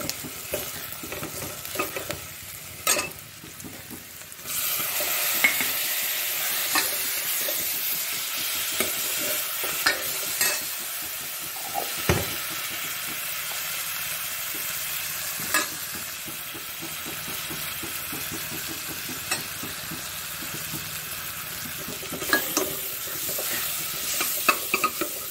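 Tadka of onions, tomatoes and spices sizzling in hot oil in a steel pot, with a metal ladle clicking against the pot as it is stirred. The sizzle gets suddenly louder about four seconds in and stays steady.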